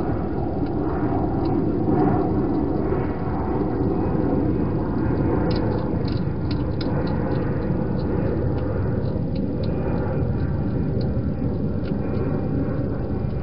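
A hedgehog eating inside a plastic feeding box, with a run of small sharp clicks about six to nine seconds in over a steady low rumbling noise.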